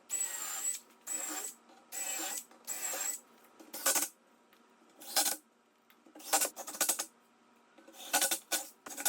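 Power driver driving 1.5-inch square-drive screws into a melamine cabinet in four short runs of about half a second each, each run with a high steady whine over the motor. After that come a few sharp clicks and clatters of screws and parts being handled.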